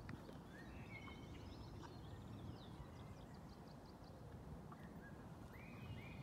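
Faint rural outdoor ambience: a low steady rumble, with birds chirping and calling on and off.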